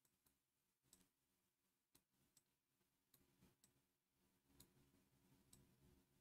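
Near silence: faint room tone with a few very faint clicks.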